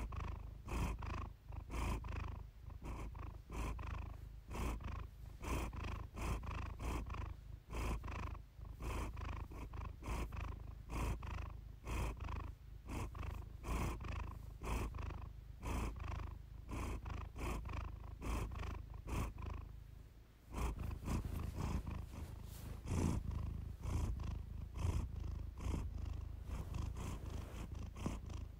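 Siamese cat purring steadily in rhythmic pulses, with a brief dip about two-thirds of the way through before the purr resumes.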